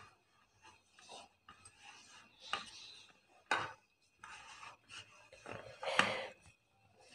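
A hand mixing crumbly biscuit dough in a stainless steel bowl: irregular rubbing and scraping of dough and fingers against the metal, with a few sharper knocks, the loudest about six seconds in.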